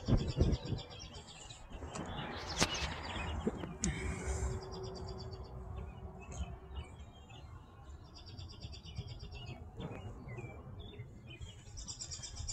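A small songbird singing short, rapid high trills of about a second each, repeating roughly every four seconds, over a low outdoor rumble.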